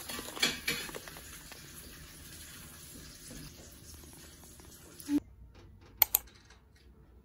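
Paper fast-food bag crinkling under a hand in a few quick rustles in the first second, then only a low hiss; two sharp clicks about six seconds in.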